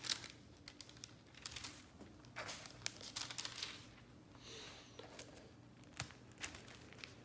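Faint rustling and soft clicks of thin Bible pages being turned by hand, in short irregular bursts with pauses between.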